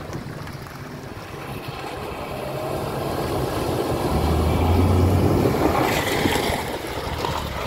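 Off-road vehicle's engine running, growing louder to a peak about two-thirds of the way through and then easing off, with wind buffeting the microphone.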